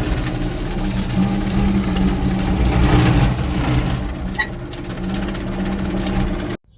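Tractor engine running steadily while topping a field, with a constant low hum; it cuts off suddenly near the end.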